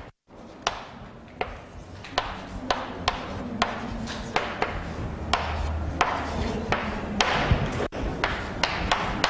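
Chalk writing on a blackboard: a long run of sharp taps and short scratchy strokes as letters and subscripts are written.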